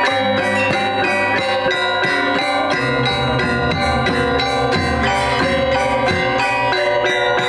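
Balinese gamelan gong ensemble playing: bronze metallophones and gongs ring in dense, fast struck patterns over drums, at a steady loud level.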